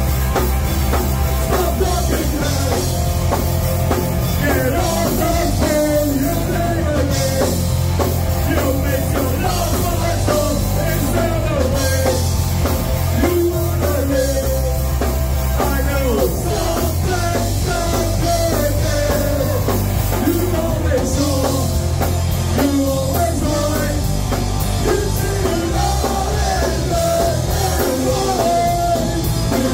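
A live rock band playing loud and without a break: distorted electric guitars, bass guitar and drum kit, with singing over it.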